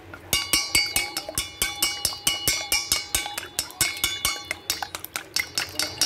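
Wooden chopsticks beating raw eggs in a stainless steel bowl: quick clicks against the bowl's side, about four or five a second, with the metal bowl ringing.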